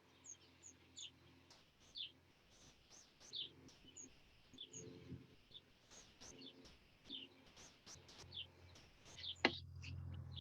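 Small birds chirping, short high notes repeated every half second to a second over a faint low hum. A single sharp click sounds about nine and a half seconds in.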